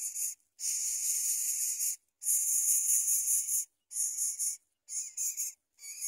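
Greater coucal nestlings begging at the nest with raspy, hiss-like calls, given in about five bursts of up to a second and a half each with short pauses between.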